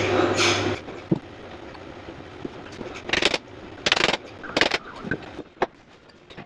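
A steady hum cuts off abruptly under a second in; then small metal clicks and three short scrapes of hand work at a classic Mini's castellated hub nut as a new split pin is fitted.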